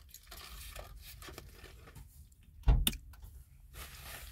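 Faint handling rustles, then one dull thump with a click a little past halfway through.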